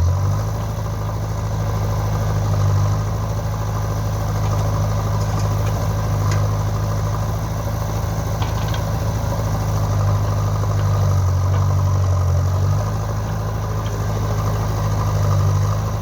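Heavy diesel engine running steadily at idle, a low, even hum with slight swells in level.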